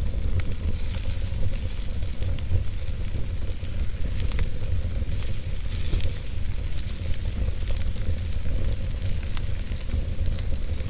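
Wood fire crackling with scattered sharp pops and a steady hiss, over a constant low rumble.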